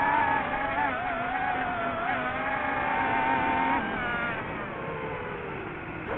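DJI FPV drone's motors and propellers whining at high RPM, the pitch wavering up and down. A little under four seconds in, the pitch drops and the sound gets quieter as the motors slow, then it keeps sinking slowly.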